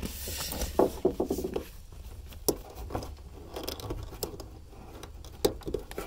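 Fingers pressing, squeezing and tugging on the plastic wiring connector of a fuel pump module: small plastic clicks and scrapes, with a few sharp ticks. The connector's locking tab is being worked but has not released.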